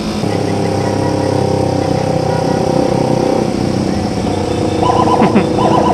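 Yamaha R15's single-cylinder engine running steadily as the bike rides along, with other motorcycles close by. Brief warbling sounds join in about five seconds in.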